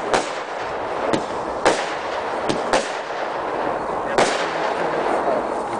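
Aerial fireworks being fired at night, shots launching and bursting in the sky: about six sharp bangs at uneven intervals over a steady noisy hiss.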